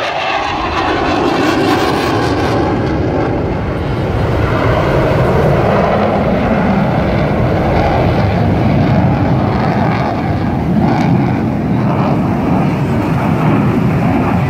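Jet noise from an F/A-18 Hornet fighter flying a display: a loud, steady rushing rumble without a break.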